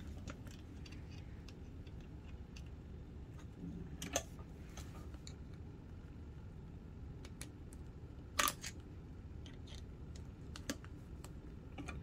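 Faint metallic clicks and taps of small parts as the presser foot on an industrial sewing machine is changed, with two louder clicks, about four seconds in and again near eight and a half seconds, over a low steady hum.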